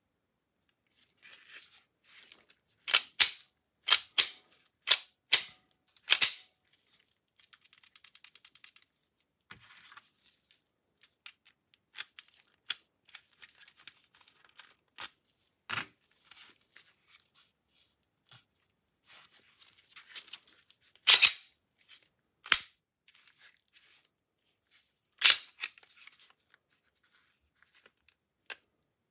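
Glock 17C pistol being handled and worked on by hand: a string of sharp metal-and-polymer clicks and clacks as parts are moved and snapped into place, with a brief quick rattle about eight seconds in.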